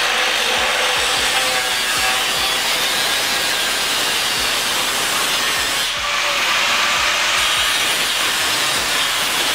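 Angle grinder grinding against a car's exhaust pipe, a steady, high-pitched grinding that dips briefly about six seconds in.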